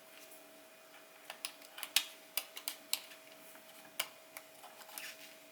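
Light, irregular clicks and taps of small plastic camera parts and a tool being handled during camera disassembly, with a sharper click about 2 seconds in, over a faint steady hum.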